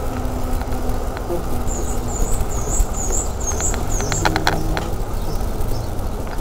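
Wind and road rumble on a camera mounted on a moving bicycle, with a few sharp rattles about four seconds in. A run of about six short high chirps sounds in the middle.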